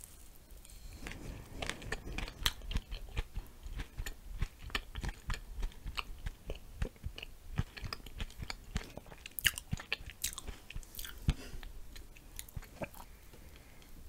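Close-miked chewing of a mouthful of sour glazed donut with whipped cream and blueberries: many small wet mouth clicks and smacks, thinning out near the end.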